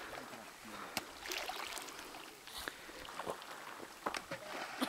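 Small waves lapping on a pebble lakeshore, with several short sharp clicks as thrown stones land.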